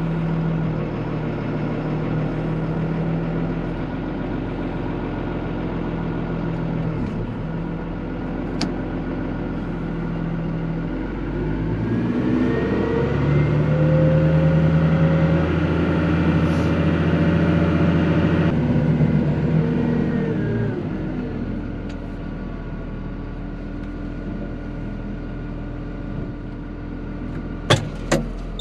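Engine of a heavy machine running just after start-up, idling steadily. It revs up about twelve seconds in, holds there for several seconds, then drops back to idle. A few sharp knocks come near the end.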